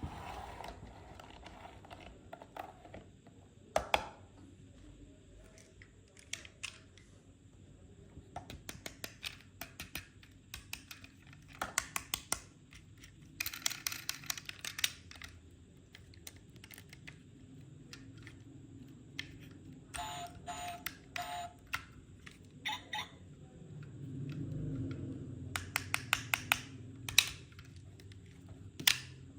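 Sharp clicks, taps and quick rattling runs of small toy cars and their plastic packaging being handled, with a short run of pitched beeps about twenty seconds in.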